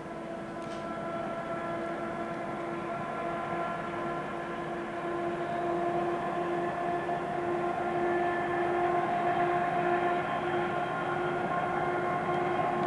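Diesel-electric engine of the ČD class 754 locomotive 754 026-3 ('nurek') straining under load as it hauls the train up a grade to a viaduct, heard as a distant, steady droning roar at a held pitch that slowly grows louder.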